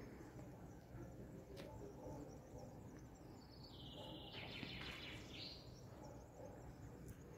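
Faint outdoor quiet, with a distant bird's trilling call for about two seconds near the middle and a couple of faint clicks.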